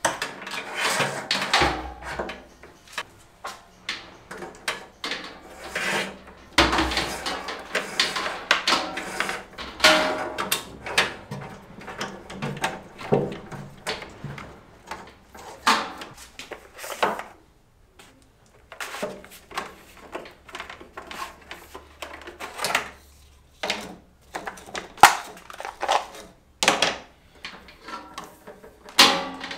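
Hands working in an electrical cabinet: irregular clicks, knocks and rustles as wires are pushed into the plastic cable duct and cables are pulled along, with a few short pauses.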